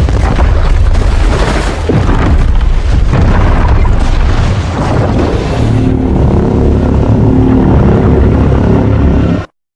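Fan-made Evolved Godzilla roar sound effect: a loud, deep, rough roar that settles into a steady pitched bellow about six seconds in, then cuts off abruptly near the end.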